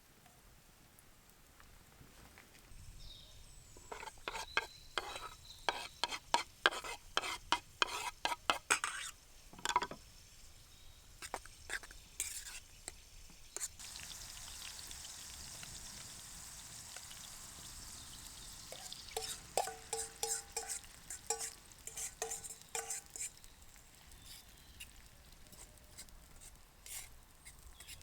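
Food being stirred in a pan with a utensil, with quick clicking and scraping strokes. A steady sizzle runs through the middle, and a few short metallic rings from the pan come near the end.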